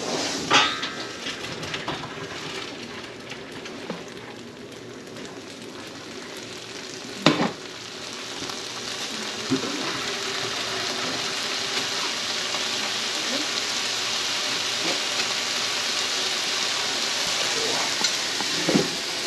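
Kitchen tap water running into a stainless steel colander in the sink, rinsing cooked noodles and broccoli: a steady hiss that grows louder from about eight seconds in. Two sharp metal knocks from the pot and colander against the sink, one right at the start and one about seven seconds in.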